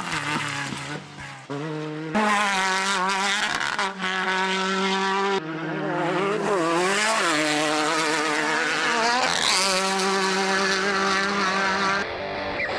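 Off-road race vehicle engines running hard at speed. The engine note changes abruptly a few times, and it dips and climbs again about seven seconds in.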